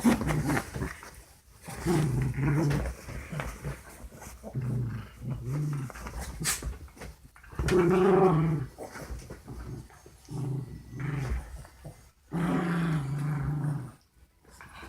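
Two dogs play-fighting, growling in repeated short bouts, with longer growls about eight seconds in and near the end; the growling is rough play rather than a real fight.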